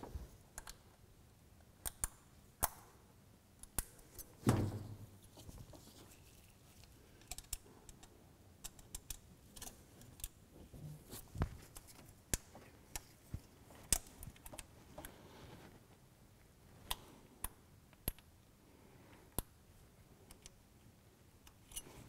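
Irregular light metallic clicks and taps of a feeler gauge and hand tools against the rocker arms of a Honda 3.5 L V6, made while checking cold valve lash. A duller, louder knock comes about four and a half seconds in.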